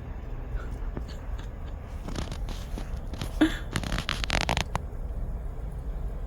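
Crunching, scratchy snow sounds for a couple of seconds near the middle, with a short sharp knock at their loudest point, over a low steady rumble.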